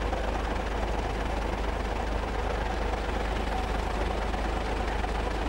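Steady low rumble of a lorry engine running, with an even background hiss.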